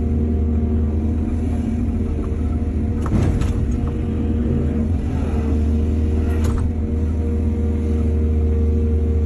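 Heavy diesel engine of earthmoving machinery running steadily, with a sharp clank about three seconds in and another about six and a half seconds in.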